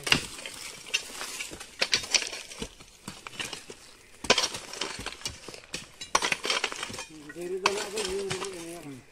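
Stones and hand tools scraping and clinking in irregular knocks as stones are laid and soil is dug and filled on a path by hand. A person's voice sounds briefly near the end.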